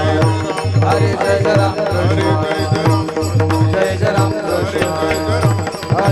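Devotional bhajan music: a hand drum plays a fast, steady rhythm of low strokes under held melodic tones, with no clear words sung.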